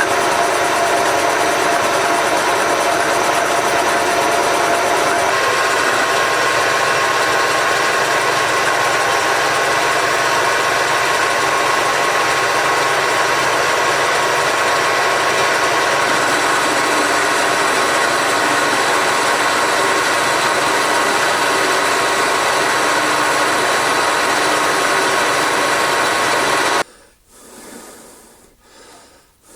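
Workshop machine tool running steadily with a dense, even whine, its tone shifting about five seconds in, then stopping abruptly near the end.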